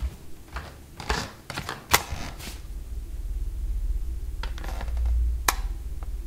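Wall light switch clicked off and on several times, sharp separate clicks. A low rumbling drone swells beneath from about halfway through.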